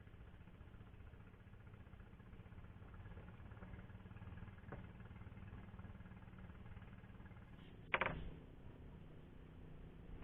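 A faint engine running steadily, with a low even hum, and one sharp knock about eight seconds in.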